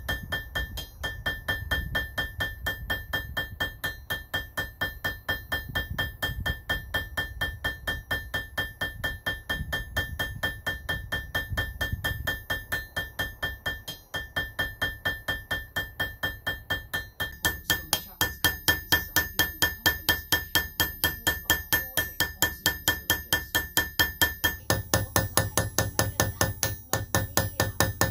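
Background music with a steady beat of struck notes, about three a second, over a held tone; the texture shifts twice in the second half.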